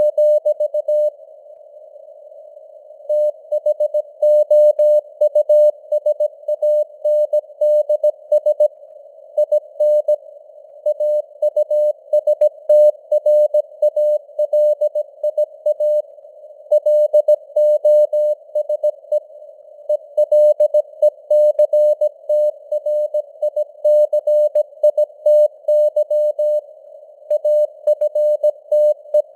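Morse code (CW) sent at 17 words per minute: a single steady-pitched tone keyed on and off in dots and dashes, with longer pauses between words, over simulated radio band hiss and with signal strength that fades up and down (QSB).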